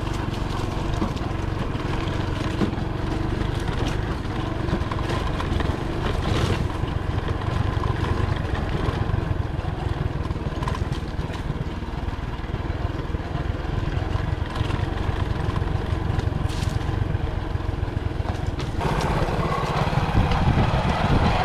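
Motorcycle engine running at low, steady speed on a dirt track, with a low wind rumble and a few short knocks from bumps. A little before the end the engine comes through louder and fuller.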